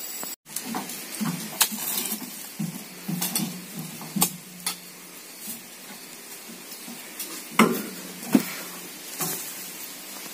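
Irregular knocks, thuds and clatter of harvested oil palm fruit bunches being handled and loaded onto a pickup truck, with a low steady hum underneath for the first few seconds.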